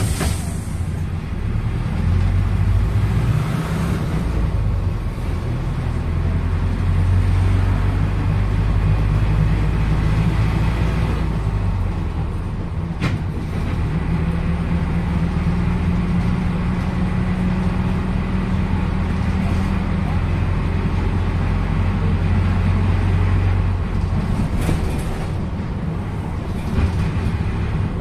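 PAZ-320402-05 bus's diesel engine and cabin noise heard from on board while driving, the engine note rising and falling with speed. A single sharp click about halfway through and a brief hiss near the end.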